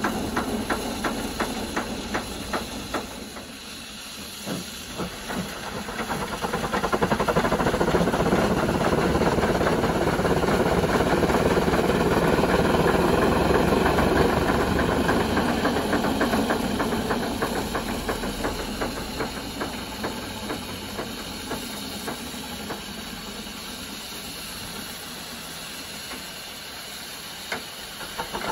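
Steam rotary snow blower R12 at work: rapid exhaust beats from its steam engine, then a loud rushing hiss that swells for about ten seconds as it bites into hard spring snow and throws it out, easing off near the end.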